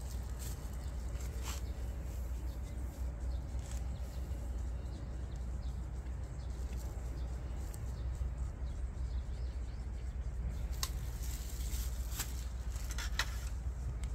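Outdoor ambience of a steady low wind rumble on the microphone, with a few light clinks and clicks of tableware and camping gear being handled.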